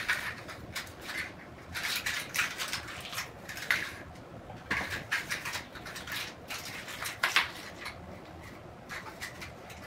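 Kitten batting at and chewing a small plastic party horn on a hardwood floor: irregular bursts of light clicks, taps and rustles as the toy knocks and skids about.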